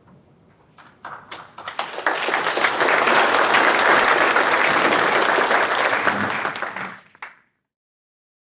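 Audience applauding in a hall: a few scattered claps about a second in swell into full, steady applause, which dies away near the end.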